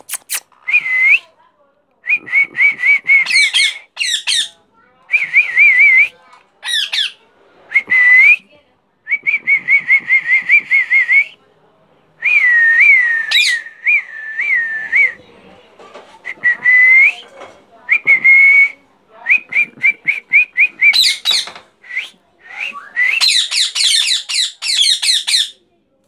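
Young Alexandrine parakeets calling in short runs of quick, wavering, whistle-like chirps, broken by brief pauses, with a burst of shrill, dense chatter near the end.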